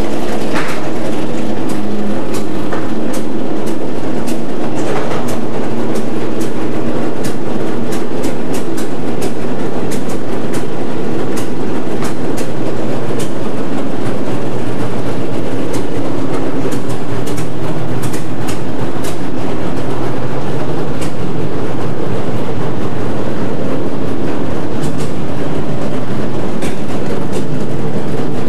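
Powerboat engine running at idle: a loud, steady rumble with many irregular sharp clicks.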